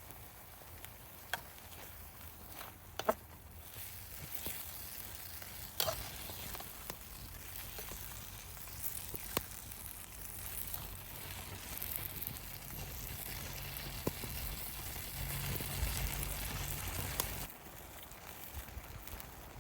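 Food sizzling in a pan over a campfire, with scattered sharp clicks and taps of a utensil against the pan; the sizzle grows louder and then cuts off suddenly near the end.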